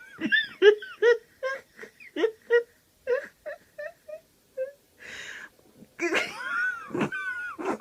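A small dog whimpering and whining in a quick run of short, high cries, then longer rising-and-falling whines near the end, with a brief hiss-like noise about five seconds in. The whining is the sound of a frightened dog that doesn't dare go past the cat.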